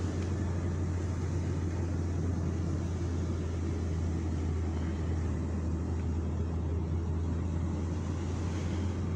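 Car driving at low speed, heard from inside the cabin: a steady low drone of engine and tyre noise on a paved road.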